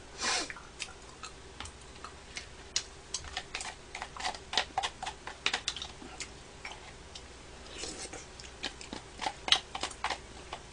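Spoon clicking and scraping against a clear plastic takeout bowl of shaved ice in quick, irregular taps, with denser bursts of clicking midway and near the end.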